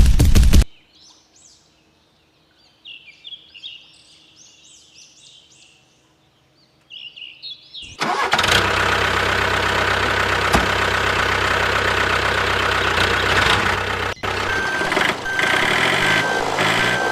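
A few bird chirps, then an engine starts about eight seconds in and runs steadily, with a brief dropout near fourteen seconds.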